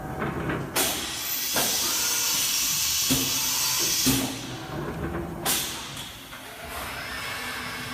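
Fadal 4020HT vertical machining center running: sharp clunks with a strong hiss of air between them, then a steady hum as the spindle starts turning near the end.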